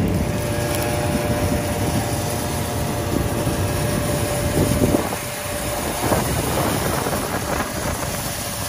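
Air blower blowing dust, chaff and loose grain off a combine harvester: a steady mechanical hum with a rushing of air, easing off a little about five seconds in.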